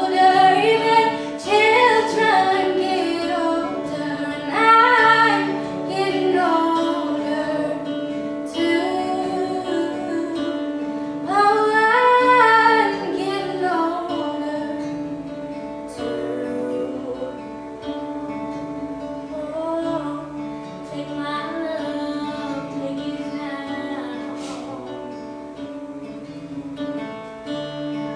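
A female voice singing a song with guitar accompaniment, the sung phrases louder in the first half.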